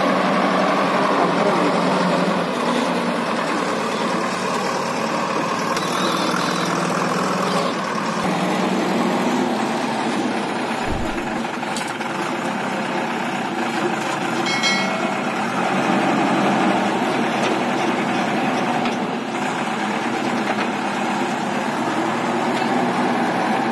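Diesel engines running steadily: a backhoe loader working its bucket, with a farm tractor's engine idling alongside.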